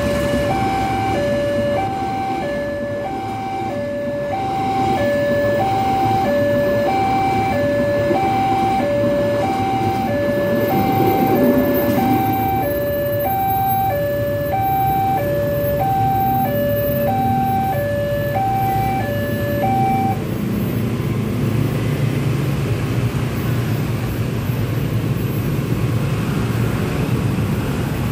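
Railway level-crossing warning alarm from the signal's loudspeaker, sounding alternating high and low electronic tones, about one pair a second, over running motorcycle and road traffic. The alarm stops about twenty seconds in, once the train has passed the crossing.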